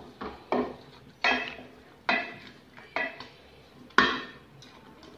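A flat spatula stirring thick masala gravy in an aluminium pot, scraping against the pot's sides and bottom in about six strokes roughly once a second, the loudest about four seconds in.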